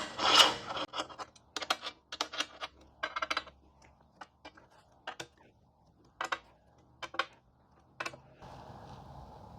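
Irregular small metallic clicks and clinks of a hex key turning and seating the flathead screws in a stainless steel motorcycle luggage rack, busiest in the first few seconds and sparser after.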